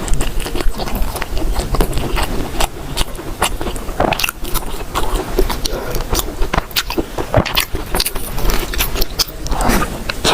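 A person biting and chewing food close to the microphone: irregular crisp crackles and clicks of the mouthfuls.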